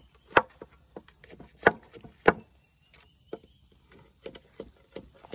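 Machete blade striking a thin bamboo stick as it is trimmed: three sharp chops in the first two and a half seconds with lighter taps between, then a pause and a few faint taps near the end. A steady high insect buzz runs underneath.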